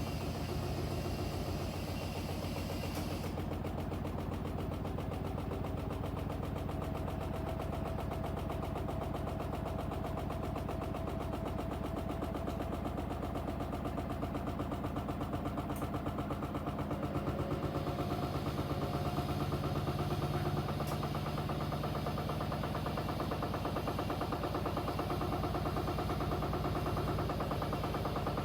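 Two front-loading washing machines, a Blomberg LWF194520QW and a Hoover H3W04105TARR4-80, running together: a steady motor hum with a fast, even pulsing from the turning drums. It grows a little louder about two-thirds of the way through.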